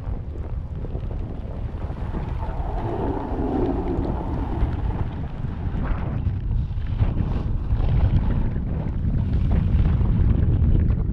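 Wind rushing over the microphone of a snowboarder's camera while riding downhill, with the board scraping over snow; it grows louder as the rider picks up speed.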